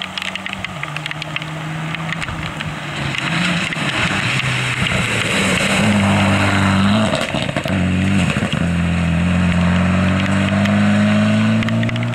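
Mitsubishi Lancer rally car driven hard past on a wet gravel stage: the engine revs high, drops in pitch at two quick gear changes about halfway through, then climbs steadily as it accelerates away. A hiss of tyres and spray on the wet gravel peaks as it goes by.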